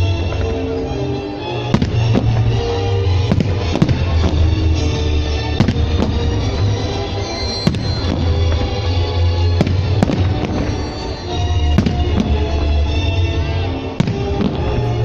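Fireworks display: a string of sharp firework bangs, a dozen or more at irregular intervals, over loud music with a heavy steady bass.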